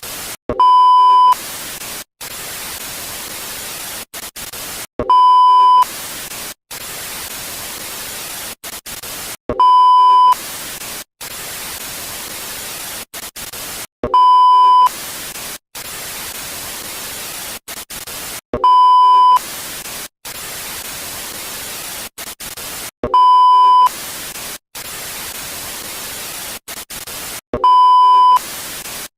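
Analog TV static: a steady hiss broken by brief dropouts to silence. About every four and a half seconds, seven times in all, a loud steady beep cuts in for under a second.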